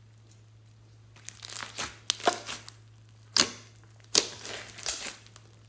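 Thick green slime packed with small foam beads being squished and pressed by hand, giving off irregular sharp pops and crackles from about a second in, a few of them much louder than the rest.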